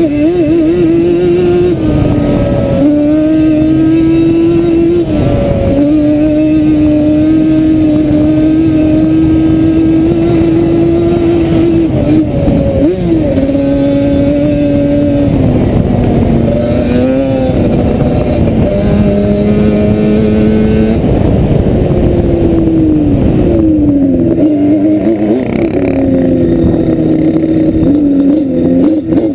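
Sport quad engine running hard across sand. Its pitch holds steady for stretches and steps down and back up several times, with a deep dip and swoop back up near the end.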